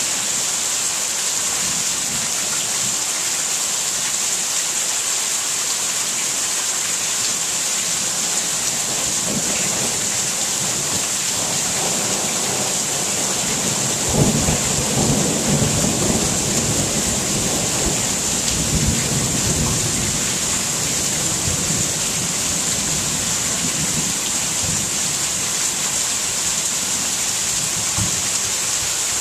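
Thunderstorm: steady rain hiss throughout. A distant thunder rumble builds about a third of the way in, then a sharp thunderclap near the middle rumbles on for about six seconds before fading back into the rain.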